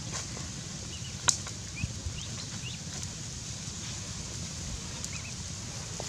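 Eggs being set on a wire grill rack over a small wood fire, with one sharp click a little over a second in. A few short bird chirps sound over a steady low background.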